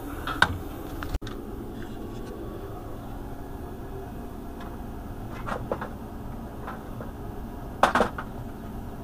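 Steady low hum with a few scattered knocks and a louder clatter about eight seconds in, from handling and moving about around the machine.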